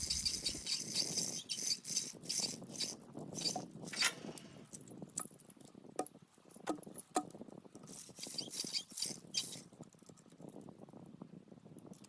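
Manual chain hoist being worked to lift a log: the hand chain rattles and the ratchet clicks in quick irregular runs, which die down about nine and a half seconds in.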